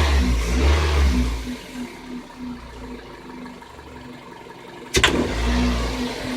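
Car engine revving, then settling back to idle. About five seconds in, the throttle is snapped open: one sharp metallic knock from the engine, and the engine revs up briefly. That single knock on sharp throttle is the fault the owner is asking about, and he wonders whether poor 92-octane fuel or the extreme cold is behind it.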